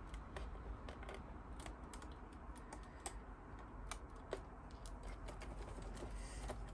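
Light, irregular clicks and taps of small plastic model-kit parts being handled and fitted together.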